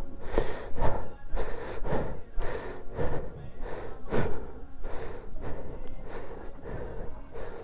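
A person panting hard close to the microphone, short quick breaths about two to three a second, out of breath from the low oxygen at high altitude.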